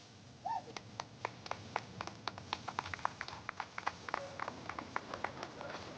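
Scattered hand clapping from a few spectators, irregular claps of uneven loudness, with a brief high call near the start.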